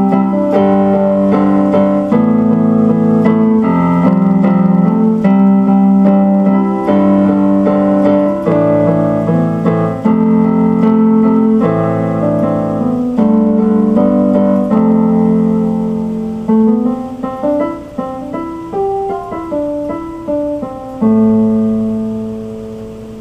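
Solo instrumental piano music played on an electric keyboard: a sequence of held chords, then a passage of quicker single notes, closing on a final chord that fades out.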